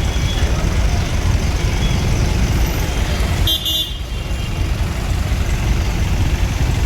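Busy road traffic with a steady low rumble, and a short high-pitched vehicle horn toot about halfway through.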